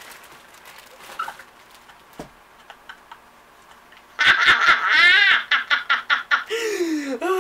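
A woman laughing loudly and heartily, starting about four seconds in after a few seconds of quiet with faint scattered clicks.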